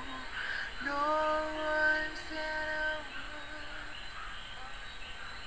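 Soft background song: a singing voice holds one long note from about a second in until about three seconds, then only quiet backing music remains.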